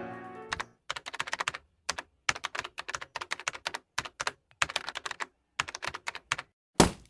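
Rapid keyboard-like typing clicks in short runs with brief pauses, ending in one louder thump near the end. Background music fades out at the start.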